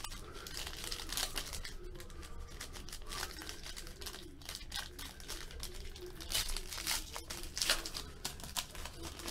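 Foil trading-card pack being torn open by hand, its wrapper crinkling in a run of sharp crackles that are loudest about six to eight seconds in.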